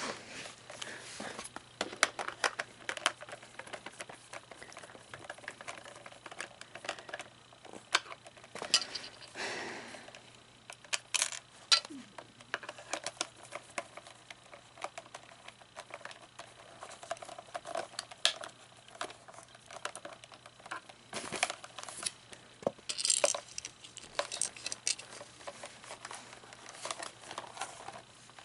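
Hands working on the plastic parts of an animatronic figure's hip assembly: scattered clicks, taps and rustling as pieces and pins are handled and fitted together.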